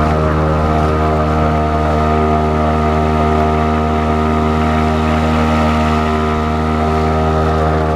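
Parsun 2hp outboard motor running at a steady speed while driving a canoe, a loud even engine drone that holds its pitch throughout.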